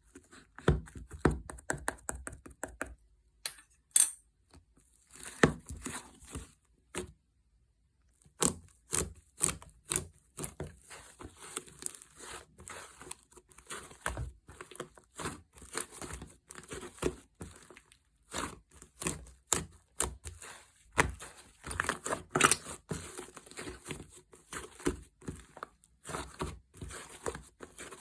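Hands squishing, stretching and pressing a fluffy clay slime, giving dense, irregular crackling pops and sticky tearing sounds, with a short pause about seven seconds in.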